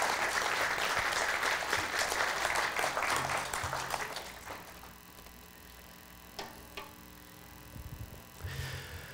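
Congregation applauding, dying away after about four or five seconds. Then a few faint knocks as a metal bar stool is handled and moved.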